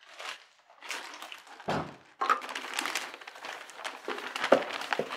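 Plastic grocery bags rustling and crinkling as they are carried and handled, with a dull thump about two seconds in.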